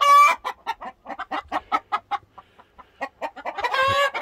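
A flock of chickens clucking in quick short notes, with the end of a long rooster call at the start and another long call beginning near the end.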